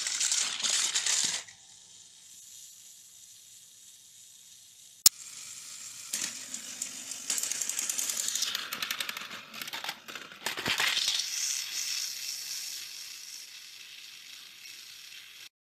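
Small battery-powered toy train motors whirring with a fast gear rattle as the plastic trains run along plastic track, broken by a quiet spell of a few seconds. There is a single sharp click about five seconds in and a clattering knock near eleven seconds, as trains tip off the track.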